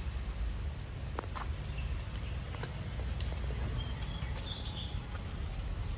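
Outdoor garden ambience: a steady low rumble, a few faint clicks, and a brief high chirp about four seconds in.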